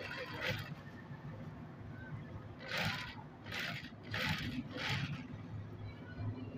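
Highlead industrial sewing machine stitching in short runs, about five brief bursts, over a steady low motor hum.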